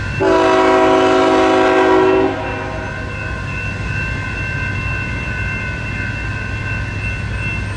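A BNSF GE ET44C4 locomotive's air horn sounds one blast of about two seconds, a chord of several notes, as a grade-crossing warning while the train approaches the crossing.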